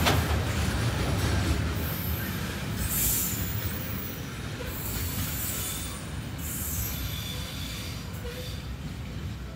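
A train rolling past and away along the rails, its wheel rumble slowly fading. Brief high-pitched wheel squeals come and go several times.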